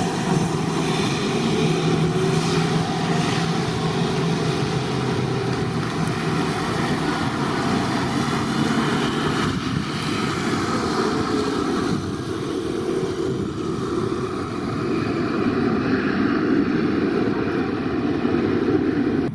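Airbus A321 twinjet's engines running at takeoff thrust during the takeoff roll: a loud, steady rush of jet noise with a low hum that fades after about six seconds as the aircraft pulls away. The sound drops off abruptly at the very end.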